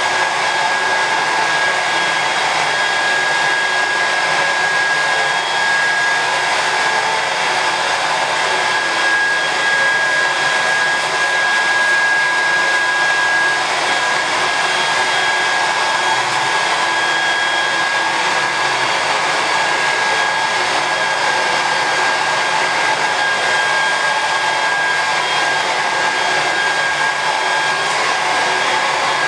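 Hand-held hair dryer running steadily while blow-drying hair: a continuous rush of air with a steady high whine.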